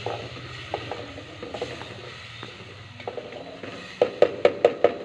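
A metal spoon scraping and knocking against a steel cooking pot while meat is stirred and browned. There are a few scattered strokes, then a quick, regular run of louder strokes, about five a second, in the last second.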